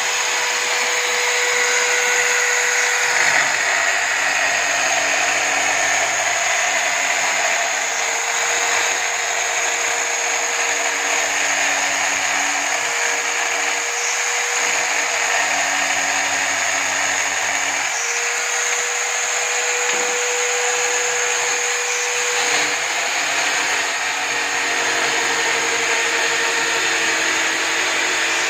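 Electric drill clamped upright in a drill stand, running a sandpaper drum as board edges are sanded on it. The motor runs steadily, its pitch shifting a little now and then as the work is pressed against the drum.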